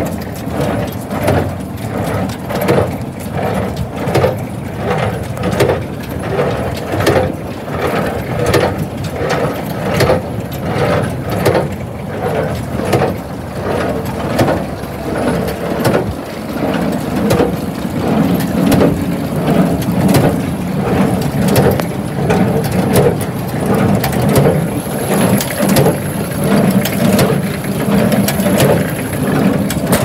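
New Holland 575 small square baler running empty off a tractor's PTO, its mechanism knocking in a regular rhythm about one and a half times a second over the tractor engine's steady hum.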